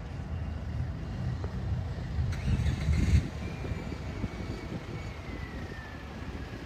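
Town street traffic: a steady low rumble of car engines and tyres, with a car passing louder about two and a half to three seconds in, followed by a faint whine that slowly falls in pitch.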